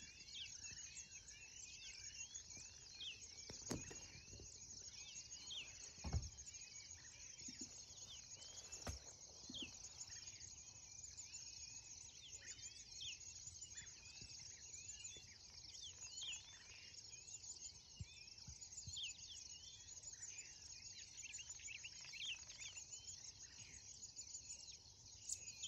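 Faint grassland ambience: a steady high hiss of insects under many short bird chirps. A few brief knocks, the loudest about six seconds in.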